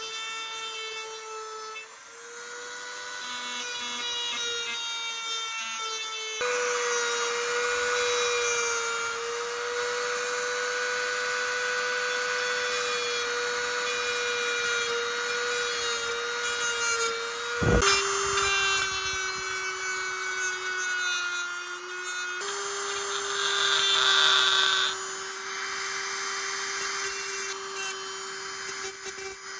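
Handheld rotary mini-grinder fitted with a thin cut-off wheel, running with a steady high whine while it cuts a strip of knife steel. The cutting adds a hissing grind in two long stretches, the second one loudest. A sharp click comes about two-thirds of the way through, after which the motor's pitch sits a little lower.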